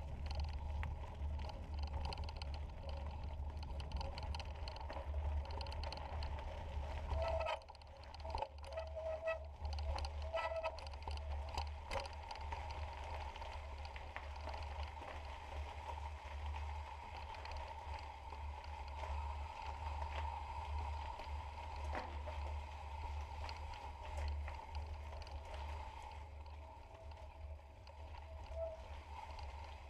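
Mountain bike riding over a gravel trail: tyres running on gravel and the bike rattling, with scattered clicks and knocks over a steady low rumble on the camera's microphone.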